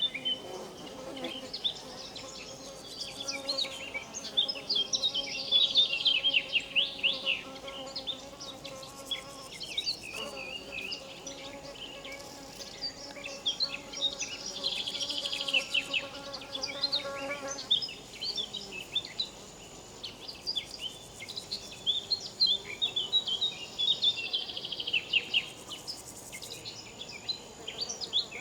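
A flying insect buzzing close to the microphone, a steady low hum that breaks off briefly about ten seconds in and stops a little past halfway. Birds chirp busily throughout, many quick high notes.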